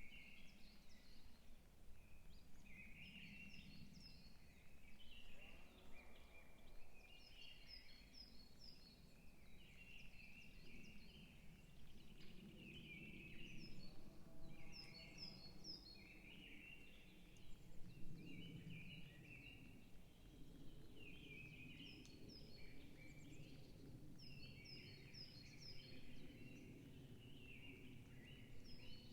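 Faint forest birdsong: songbirds repeating short chirping phrases every second or two, some with quick high falling notes, over a low steady rumble.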